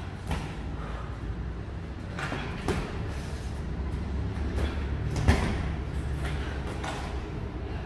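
Light boxing sparring: scattered thuds of gloved punches and footwork on the ring mat over a steady low hum. The sharpest hit comes about five seconds in.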